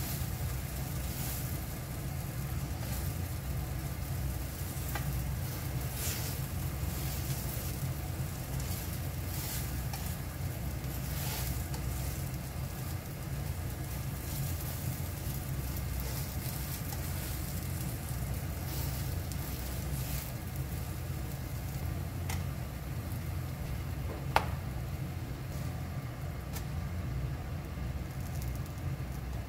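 Oat pancakes sizzling in a nonstick frying pan, with scattered crackles over a steady low hum and a slotted spatula working in the pan. One sharp knock comes toward the end.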